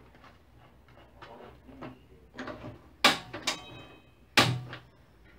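Kitchen clatter as a plastic bottle of cooking oil is fetched: a few faint clicks, then three sharp knocks about halfway through and near the end. One knock is followed by a brief ringing tone.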